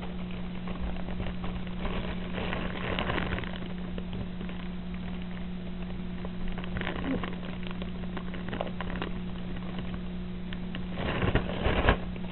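A steady low hum runs throughout, with scattered faint clicks. A cluster of louder knocks and taps comes about eleven seconds in.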